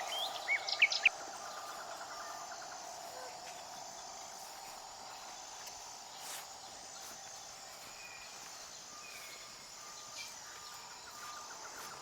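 Birds chirping quickly for about the first second. Then a steady rural background follows, with faint insect and bird calls.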